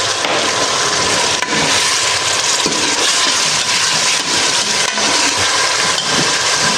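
Tomato puree sizzling steadily in hot oil with fried onion, garlic and ginger paste in the pan, during the masala-frying (bhunna) stage.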